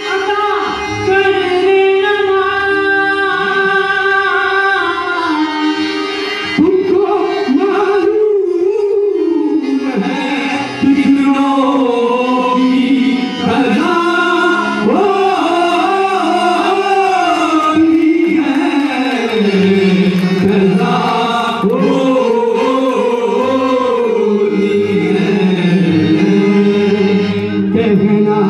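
Qawwali: a sung melodic line with gliding, ornamented notes over a steady instrumental accompaniment.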